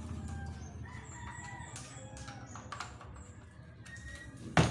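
A rooster crowing with chicken calls, several short rising and falling calls. A sharp, loud knock comes near the end.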